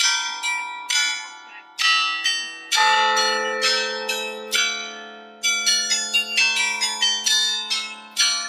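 Bells ringing a tune: struck notes come several a second, often overlapping, each ringing on and dying away, with a steady low ringing note from about three seconds in.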